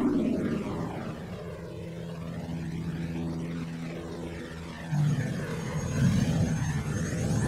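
Aircraft engine droning steadily in flight, turning louder and rougher about five seconds in.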